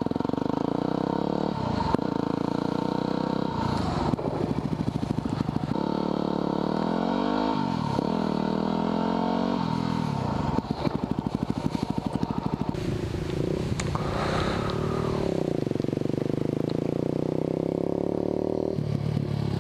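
Yamaha WR250R dual-sport motorcycle's single-cylinder engine running under the rider, its pitch rising and falling several times as the throttle is opened and closed.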